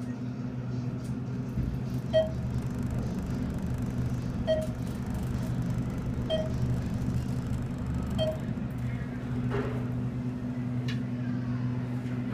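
Thyssenkrupp elevator cab travelling upward, with a steady low hum inside the cab and four short electronic beeps about two seconds apart, the cab signalling floors as it climbs.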